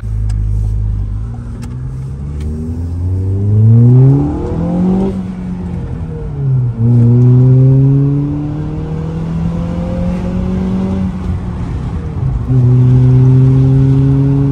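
Toyota Corolla hatchback's four-cylinder engine through a Remark cat-back exhaust, heard from inside the cabin while accelerating. Its pitch climbs steeply to a peak about four to five seconds in and falls away. It then climbs again more slowly, drops once more, and holds steady near the end.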